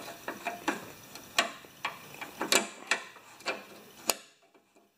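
Small metal clicks and knocks as a retaining clip is worked onto the Honda mower's rear wheel lever bracket by hand. There are about ten sharp clicks at irregular spacing, the loudest about one and a half and two and a half seconds in, and they stop about four seconds in.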